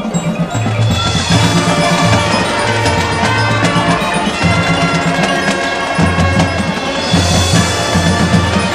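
Marching band playing full out: brass and winds holding chords over a low bass line, with drumline percussion driving underneath.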